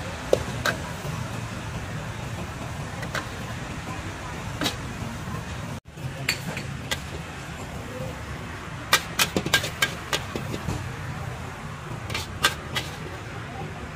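Long metal spatula clinking and scraping against a steel wok as stir-fried noodles are scooped out, with sharp clinks scattered through and several in quick succession about two-thirds through. Underneath runs a steady low rumble of street traffic.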